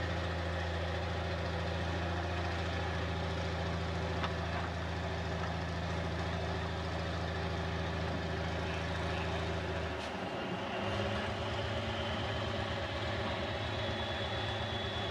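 Cummins 220 diesel engine of a Lima Model 65-T cable dragline running steadily under load as the bucket drags through a log pond. About ten seconds in the engine note changes and a faint high whine rises in as the bucket is hoisted out of the water.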